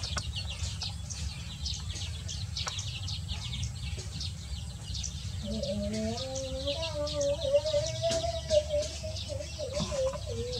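Chicks peeping, many quick high cheeps overlapping, over a steady low rumble. About halfway in, a lower, wavering drawn-out tone joins for several seconds.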